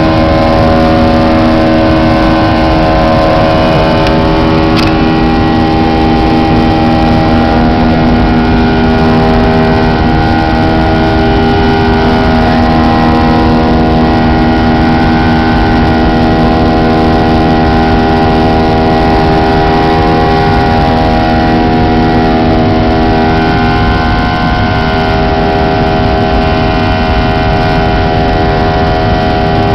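Jet airliner's engines at climb power heard inside the passenger cabin: a loud steady roar with several steady whining tones over it.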